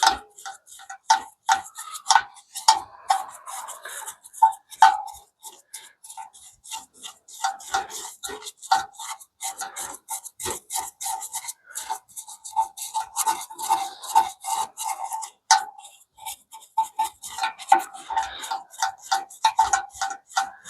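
A brush scrubbing sludge and crud out of the metal parts of a Refleks diesel heater with white spirit: a long run of quick scratchy strokes mixed with sharp taps.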